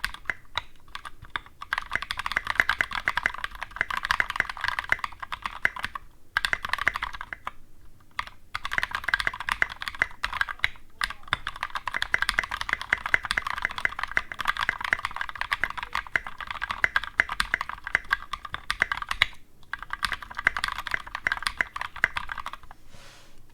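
Fast typing on a custom mechanical keyboard with NovelKey Cream linear switches, lubed with Krytox 205g0 and filmed, mounted on a brass plate under SA keycaps. Runs of rapid keystrokes are broken by short pauses, and the typing stops about a second before the end.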